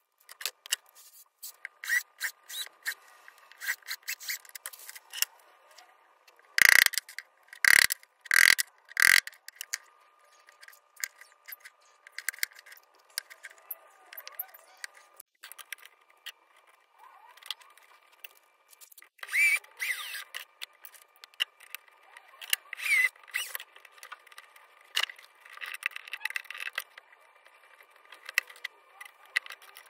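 Small wooden box and tools handled on a wooden workbench: scattered clicks, taps and scrapes. Four heavy knocks come close together about a third of the way through, and a couple of short squeaky scrapes come later on.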